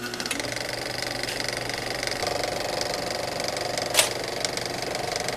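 A steady, fast mechanical rattle like a small motor running, with one sharp click about four seconds in.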